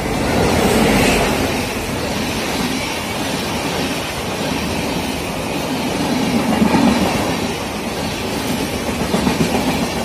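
Passenger train passing close by, its wheels clattering over the rail joints. The noise swells in the first second, then stays loud and steady with brief rises near the end.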